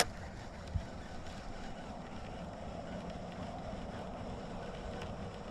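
A baitcasting reel clicks sharply as it is engaged after a cast. A soft low thump follows under a second later, then steady wind noise on the microphone.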